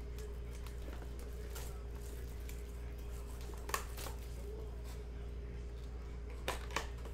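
Plastic shrink wrap and a cardboard trading-card hobby box being handled and opened, with a sharp tap a little past halfway and two more near the end, over a steady electrical hum.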